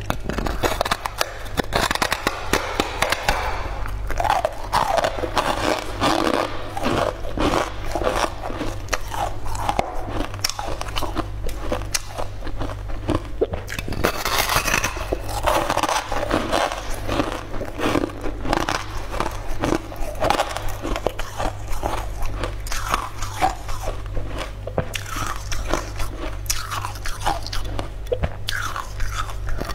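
Crunchy bites and chewing of a frost-sugar-coated snowflake crisp (xuehua su), close up: dense, irregular cracking and crackling throughout.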